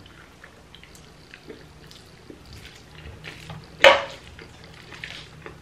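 Thick, sticky black bean sauce and noodles being stirred, a run of soft wet squishing and small clicks like stirring mac and cheese, with one sharp knock about four seconds in.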